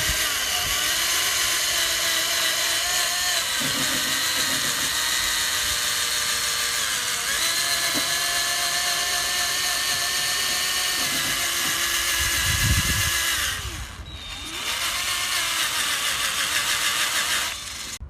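Power drill spinning a sanding pad against a plastic headlight lens. The steady motor whine sags in pitch and recovers as the pad is pressed on. It stops briefly about 14 seconds in, runs again, and stops just before the end.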